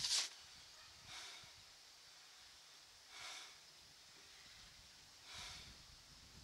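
Soft breathing: four short breathy puffs, roughly one every two seconds, the first the loudest.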